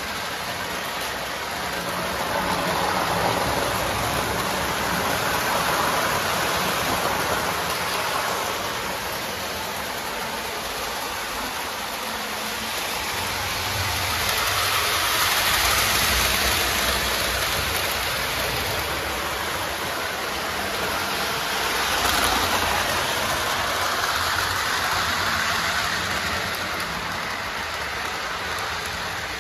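Lionel O-gauge toy trains rolling on the track, a steady rushing rumble of wheels and motors that swells and fades several times as the trains pass close by.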